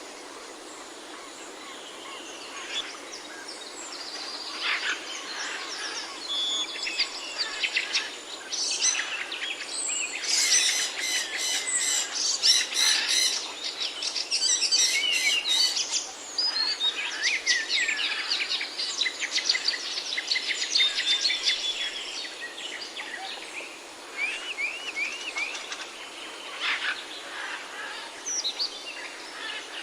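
Several birds chirping and singing over a steady hiss, with rapid repeated chirps at their busiest in the middle and short sweeping whistled notes later on.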